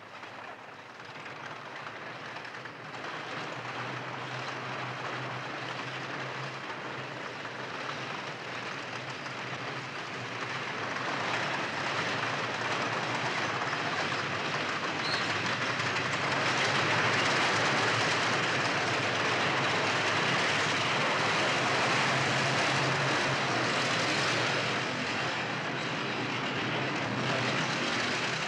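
A column of tanks moving along a street: a dense din of engines and clattering tracks, growing louder over the first half and then staying loud.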